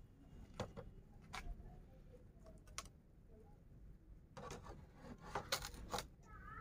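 A few faint clicks and light taps over a low steady hum. They come more often in the last couple of seconds.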